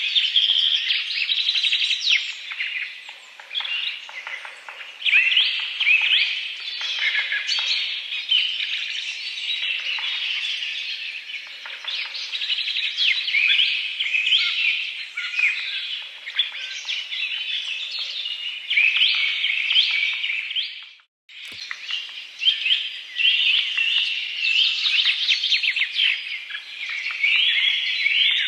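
A dense chorus of small birds chirping and tweeting, many short calls overlapping without a break. About two-thirds of the way through, the sound drops out for a moment, then the chorus resumes.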